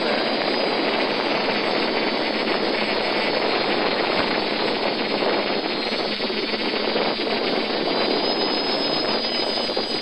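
Steady rushing noise of a quadcopter's brushless motors and propellers in flight, holding an even level throughout.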